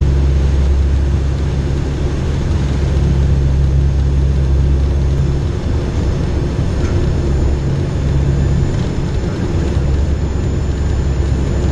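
Steady cabin drone of a four-engine turboprop hurricane hunter aircraft in flight: a low propeller and engine hum under a wash of airflow noise. The hum wavers and thins for a couple of seconds around the middle, then returns.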